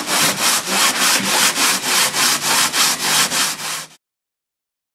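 Sandpaper on a hand sanding block rubbed back and forth over the fiberglass-and-carbon-fiber patch on a racing shell's hull, fairing the fill flush with the rest of the hull. Quick, even strokes, about three or four a second, that cut off abruptly about four seconds in.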